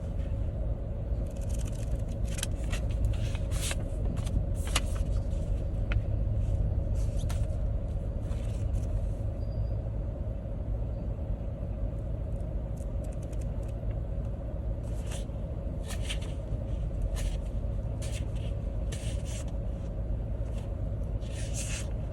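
Steady low rumble of a road vehicle being driven, heard from inside, with scattered light clicks and rattles.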